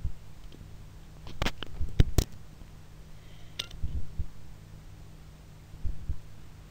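Room tone with a steady low hum, broken by scattered soft thumps and a few sharp clicks and knocks, the loudest a cluster about one and a half to two seconds in.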